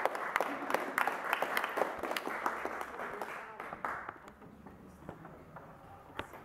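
Audience applauding, dying away after about four seconds.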